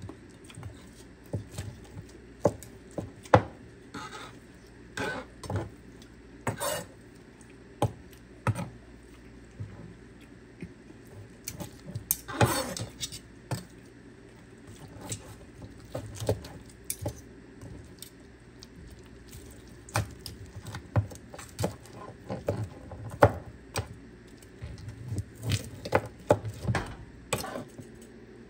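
Kitchen utensils and cookware clinking and knocking at irregular intervals, with a steady low hum underneath.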